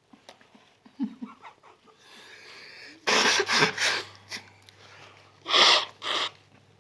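People sneezing from snuff: a quick run of sharp, noisy bursts about three seconds in, then two more near the end.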